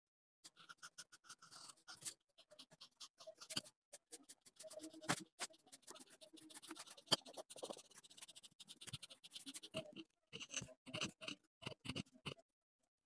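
Marker tip scratching and rubbing across paper in quick strokes as it colours in. Near the end the strokes give way to a run of sharp snips as scissors cut through the paper.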